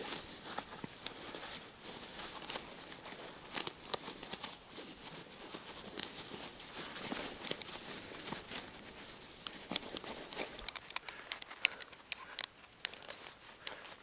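Climbing hardware being handled on a fixed rope: irregular light metallic clicks and rattles of carabiners and an ATC belay device, over a low rustle of rope and gloves.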